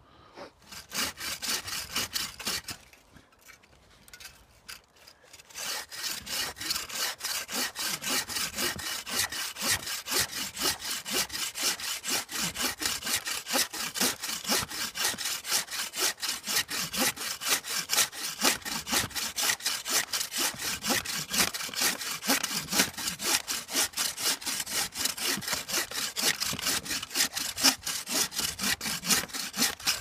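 Bow saw cutting through a fallen log. A short run of strokes, a pause of about three seconds, then steady, quick back-and-forth strokes.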